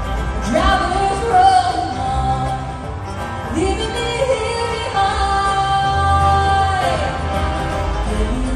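Live acoustic bluegrass band playing a song, with acoustic guitars, banjo, mandolin, fiddle and upright bass. Sung vocals swoop up into long held notes twice, about half a second in and again near the middle.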